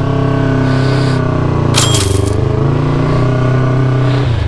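Triumph Daytona 675's inline-three engine running while riding, its pitch rising at the start and then holding steady, with a brief burst of hiss about two seconds in.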